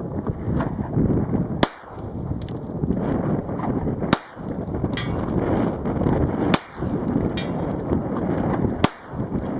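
Four 9mm pistol shots from a Springfield XD9 Tactical, evenly spaced about two and a half seconds apart. A little under a second after each shot comes a faint, high ping from the distant AR500 steel target.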